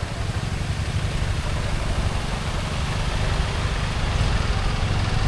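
Motor scooter engine running steadily while riding, a constant low hum with an even hiss over it.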